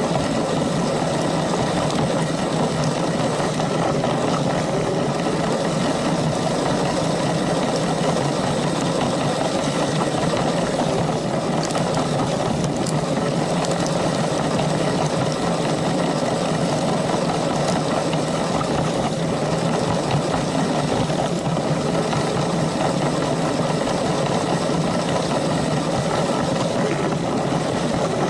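Small electric motor of a Lego train running steadily at a constant speed as the train rolls along its track.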